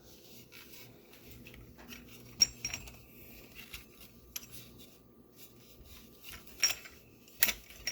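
Light clinks and taps of a Pinocchio wind-up toy's parts being handled, with a few sharper knocks, the loudest about two and a half seconds in and two more near the end.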